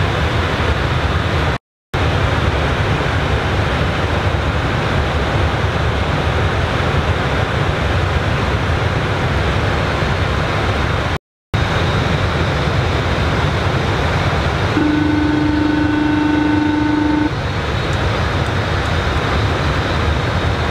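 Steady rush of airflow and engine noise in an Airbus A320 cockpit in flight, broken twice by a split second of silence. Past the middle, a steady low electronic tone sounds for about two and a half seconds.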